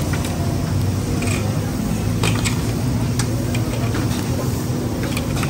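Steady low mechanical drone over street background noise, with a few sharp clicks scattered through.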